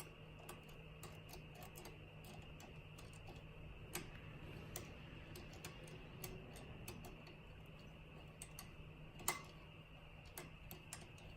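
Faint, irregular light clicks and ticks of a lever pick and tension tool working the levers inside a six-lever Securit padlock, with a sharper click about four seconds in and a louder one about nine seconds in.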